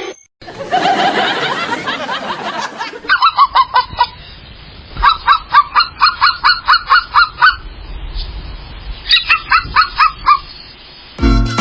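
A bird honking in three quick runs of short calls, about five a second, with pauses between the runs.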